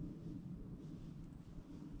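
Faint, low wind rumble on the microphone.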